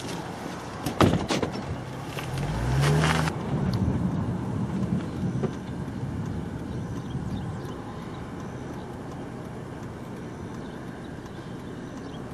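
Car pulling away, its engine revving up with a rising pitch, then steady engine and road noise while driving. A sharp knock about a second in.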